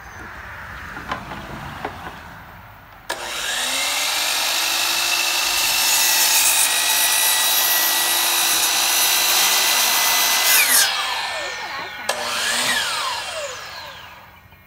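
DeWalt sliding compound miter saw starts suddenly about three seconds in, its blade whining steadily as it cuts through a wooden board. It winds down with a falling whine, is started again briefly, and winds down a second time near the end.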